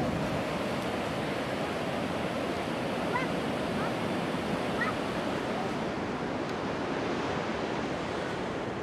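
Ocean surf washing onto a beach: a steady rush of breaking waves. A few faint, brief high calls come through about three to five seconds in.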